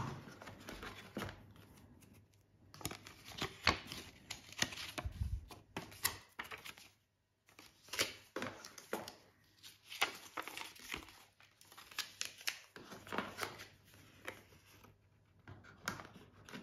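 Paper cards and cardboard packaging rustling and crinkling as hands take them out of a small box, in irregular spells with a few brief pauses.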